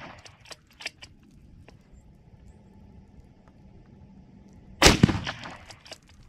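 Steyr Scout bolt-action rifle in .308 Winchester: one rifle shot about five seconds in, trailing off in echo. Before and after it come quick metallic clicks of the bolt being cycled to chamber the next round.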